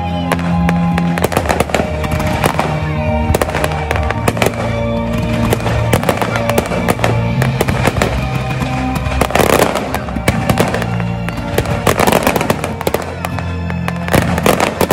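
An aerial fireworks display: shells and comets bursting many times in quick succession, over music with held notes. A thick patch of crackling comes about two thirds of the way through.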